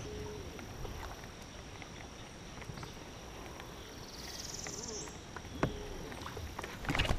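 Insects droning in one steady high-pitched note, with a second insect's rapid pulsing buzz about four seconds in. Faint clicks and knocks are scattered through, and a sharper knock comes near the end.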